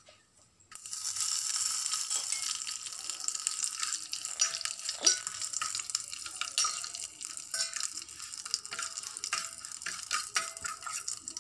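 Curry leaves hitting hot oil with fried mustard seeds and urad dal in a steel pan, the tempering for a kurma: a sudden loud sizzle about a second in, then steady sizzling with many small crackles as a fork stirs them.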